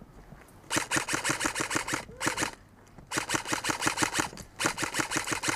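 Airsoft rifle firing on full auto in four rapid bursts of sharp mechanical clicks: a long burst, a short one, then two long ones.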